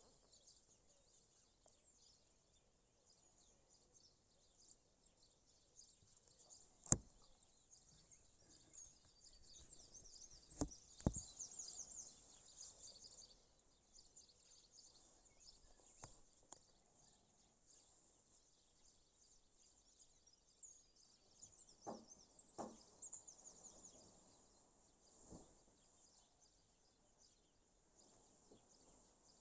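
Quiet outdoor ambience of faint, distant birds chirping, with a few scattered sharp clicks and knocks; the loudest comes about seven seconds in, and a pair follow around eleven seconds and again around twenty-two seconds.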